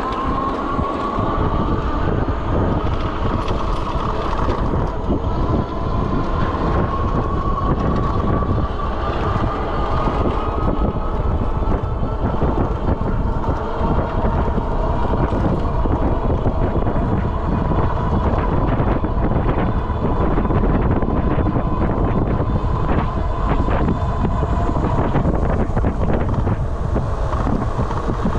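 Electric bike motor whining under way, its pitch climbing slowly over the first half and then holding steady, over wind buffeting on the microphone and tyres rumbling on rough asphalt.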